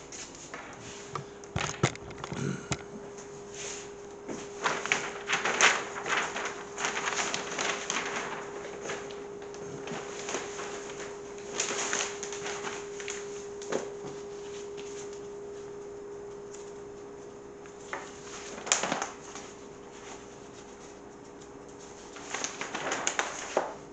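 Large paper plan sheets rustling and crinkling in irregular bursts as they are handled and laid out on a wooden table, over a steady hum.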